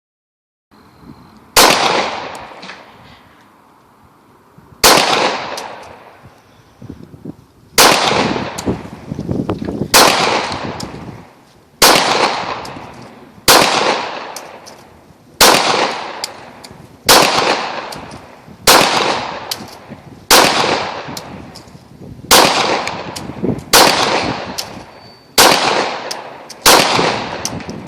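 Glock 17 9mm pistol fired in slow single shots with 115-grain full metal jacket rounds, about fourteen shots, one every one and a half to two seconds after a longer pause following the first. Each shot is followed by an echo dying away over about a second.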